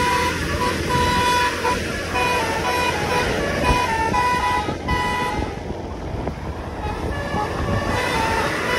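A bus's basuri musical horn playing a tune of short, stepped notes that breaks off about five seconds in and starts again near the end, over steady road and wind noise from a moving scooter.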